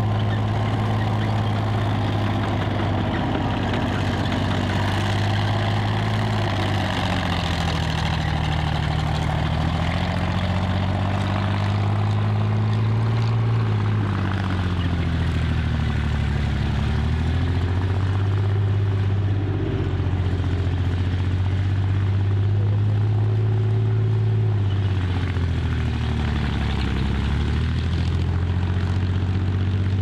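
Tiger II tank's Maybach HL 230 V-12 petrol engine running as the tank drives, its pitch dropping and climbing again several times as the revs change.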